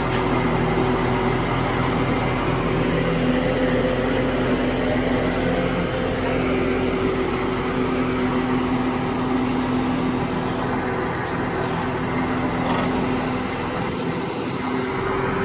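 A large vehicle's engine running steadily: a continuous drone with a few held tones that shift in pitch now and then.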